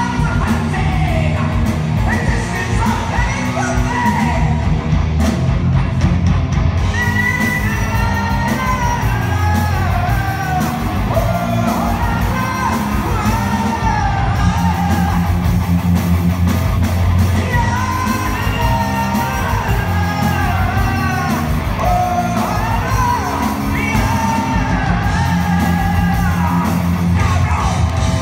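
Progressive metal band playing live: a high, belting male lead vocal over distorted electric guitars, bass and drums, recorded on a phone's microphone in a large concert hall.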